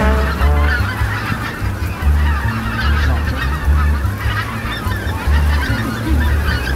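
A large flock of wild geese, greater white-fronted and greylag geese, calling continuously as they fly over in a dense, overlapping chorus of honks and yelps. A low, uneven rumble runs beneath the calls.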